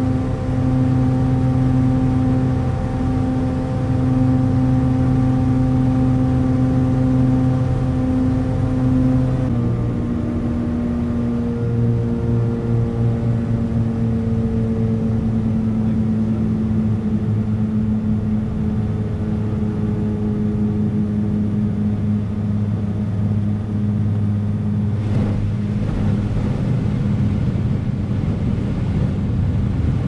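The Lake Renegade amphibian's pylon-mounted pusher piston engine and propeller drone steadily in flight. The note changes abruptly about nine seconds in, then sinks slowly.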